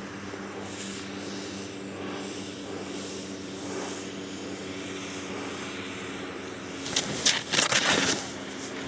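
Snowboard edge scraping and carving through choppy snow as the rider passes close, loudest for about a second near the end. A steady low hum runs underneath.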